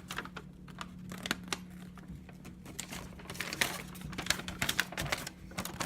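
Paper and cardboard packaging rustling and crinkling as it is handled, in irregular crackles that thicken a few seconds in, over a low steady hum.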